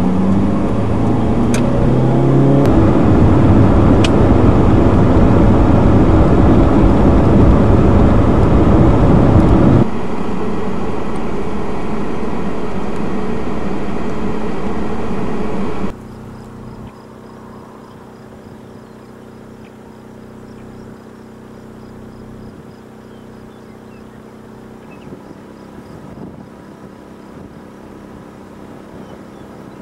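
Car engine and road noise heard from inside a moving vehicle, getting louder as it pulls away and gathers speed, then easing about ten seconds in. About sixteen seconds in it cuts off abruptly to a much quieter steady hum.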